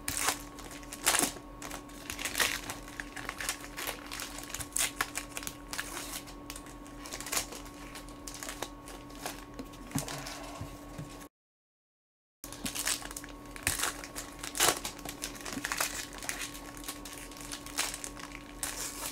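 Foil trading-card pack wrappers crinkling and tearing as packs are ripped open and the cards handled, in irregular rustles and snaps over a faint steady hum. The sound cuts out completely for about a second past the middle.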